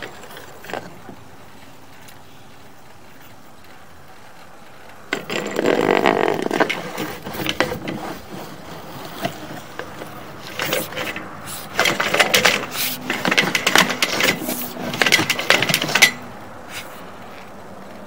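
Sewer camera push cable being fed into the sewer line, scraping and rattling, with the camera head knocking along the pipe. It comes in two spells, one about five seconds in and a longer one from about ten to sixteen seconds in, over a steady low background.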